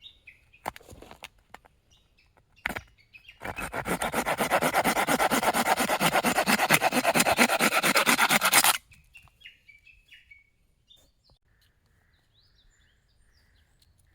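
Rapid, even rubbing strokes on wood, several a second for about five seconds, like a wooden knife being sanded or rasped into shape, with a couple of short scrapes before. Small birds chirp before and after.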